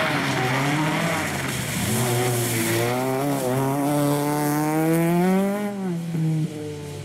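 Peugeot 206 RC rally car's engine under hard acceleration, its pitch climbing steadily for several seconds, then dropping sharply near the end.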